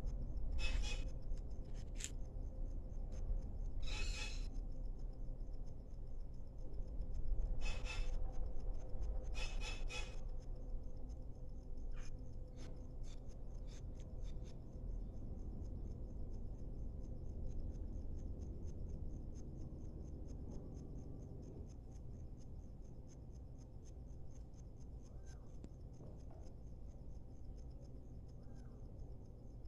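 Small birds chirping in short, scattered calls, most of them in the first ten seconds and only a few faint ones later, over a steady low background rumble.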